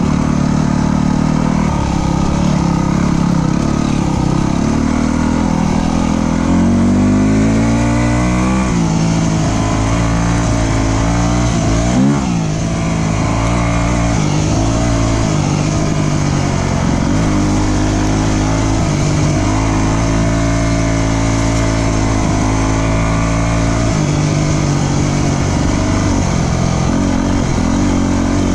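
Dirt bike engine running under way, its pitch rising and falling with the throttle and climbing steadily for a couple of seconds near the middle. A single thump about twelve seconds in.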